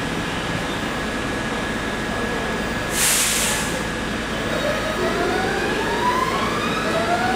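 R68 subway train standing at a station platform with its doors open: a steady hum, a short hiss of air about three seconds in, then a rising whine from about five seconds in.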